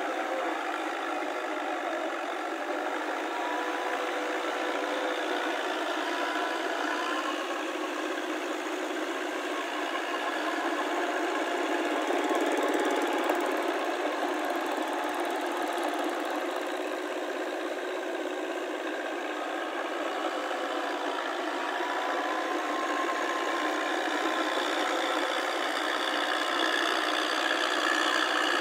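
Tractor engine running steadily under load as the tracked tractor pulls its rotary tiller through flooded paddy mud, growing louder near the end as it comes closer.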